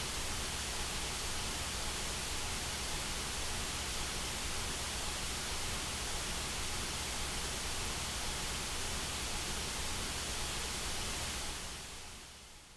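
Steady white noise, an even hiss across all pitches, fading out over the last second or so.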